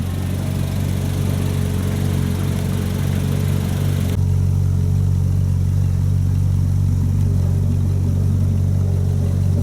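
Ferrari 458 Spider's V8 engine idling steadily with a deep, even low note.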